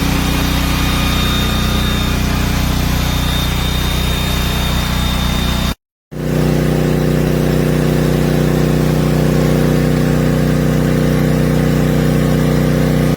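Westinghouse tri-fuel portable generator engine running steadily at constant speed. It cuts off briefly about six seconds in, then resumes just as steady with a somewhat deeper hum.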